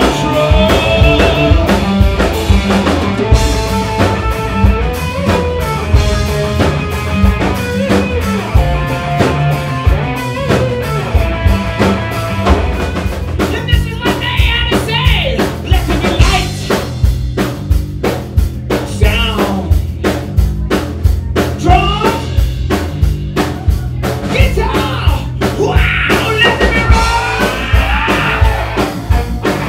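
Live rock band playing loud: electric guitar over a driving drum kit, with a singer's vocals coming in over them midway and again near the end.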